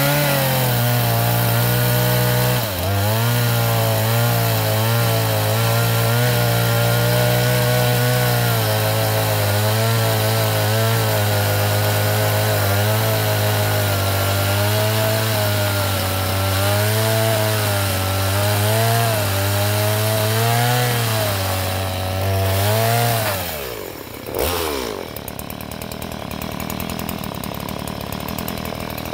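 Two-stroke Stihl chainsaw running at full throttle as its chain cuts into an oil palm trunk, the engine pitch wavering up and down under the load of the cut. About 23 seconds in the throttle is released, with one short blip, and the saw settles to a lower, quieter idle.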